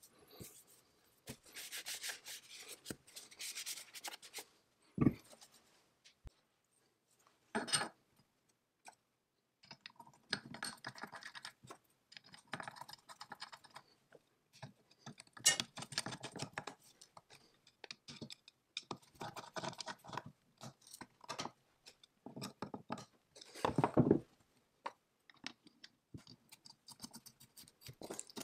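Cast-iron lathe parts being handled and fitted together by hand: bursts of metal scraping and rubbing as pieces slide against each other, with several short, sharp knocks of iron parts being set down or bumped.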